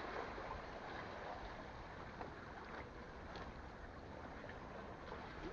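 Steady outdoor noise of wind and sea water around a fishing platform, with a few faint ticks.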